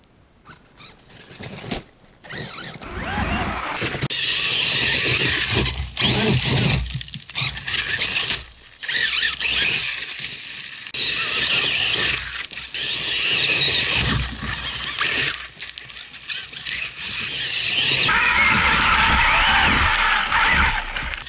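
Kyosho Foxx VE brushless electric RC truck's motor and drivetrain whining high, rising and falling with the throttle, over its tyres scrabbling in loose soil as it climbs a dirt bank. Faint at first, it turns loud about four seconds in.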